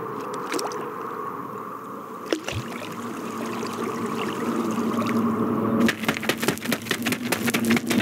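Film sound effect of an approaching swarm of grasshoppers: a buzzing drone of wings that grows steadily louder. A dense, rapid crackle of clicks joins it about six seconds in.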